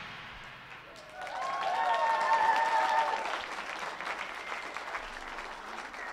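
The film's explosion fades out in the first second, then an audience breaks into applause about a second in, swelling quickly and slowly tapering off, with a few voices calling out near its start.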